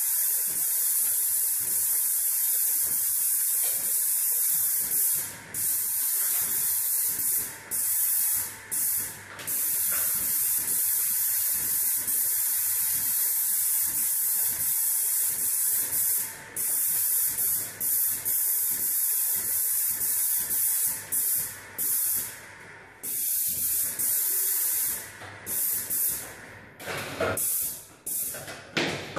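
Airless paint spray gun spraying paint onto a wall: a steady high-pitched hiss of paint atomising at the tip, cut off briefly each time the trigger is released, with the short stops coming more often near the end.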